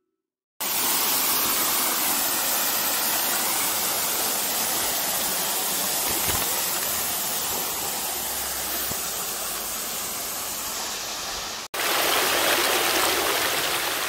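Rushing water from a waterfall and stream, a steady splashing roar that starts about half a second in. Near the end it cuts abruptly to water spilling over rocks close by, louder and hissier.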